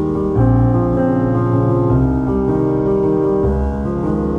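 Background music led by piano, with held chords changing about every one and a half seconds.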